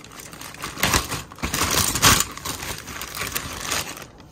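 A plastic zip-top bag is pulled open and crinkled as a hand rummages inside, with the pocket knives in it clicking and clinking against each other. The rustling is loudest about a second or two in and dies away near the end.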